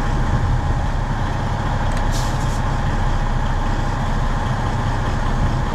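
Semi-truck diesel engine running steadily as the tractor pulls against the coupled trailer in a tug test, checking that the fifth wheel has latched onto the kingpin. A short hiss comes about two seconds in.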